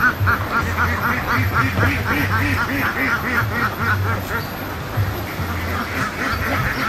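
Ducks quacking in a fast, continuing run of calls, several a second, easing briefly about five seconds in before picking up again.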